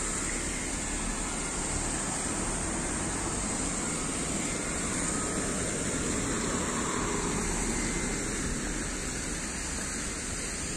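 Steady road traffic noise, with a car driving past.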